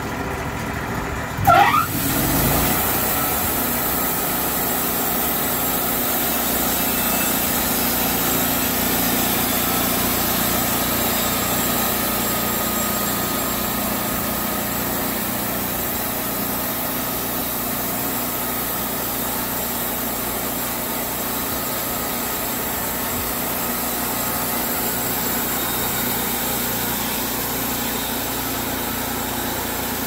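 Wood-Mizer portable bandsaw sawmill: a short rising whine about a second and a half in as it revs up, then the engine and band blade run steadily as the blade cuts along the length of a log.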